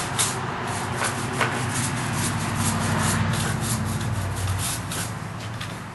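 A brush scrubbing rust off a blacksmith's vise after electrolysis, in quick back-and-forth strokes of about three to four a second, over a low steady hum.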